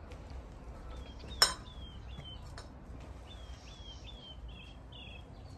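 A small bird singing in the background: a series of short, falling chirps repeated every half second or so. A single sharp click about a second and a half in is louder than anything else. A low steady outdoor hum lies underneath.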